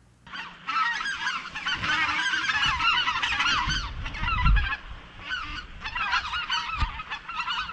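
A large flock of wild geese flying overhead, many birds honking at once in a dense, overlapping chorus. A brief low rumble comes about halfway through.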